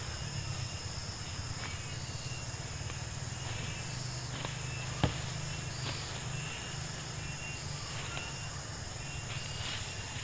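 Steady high insect drone of forest crickets or cicadas over a low rumble, with scattered light clicks and one sharp knock about five seconds in.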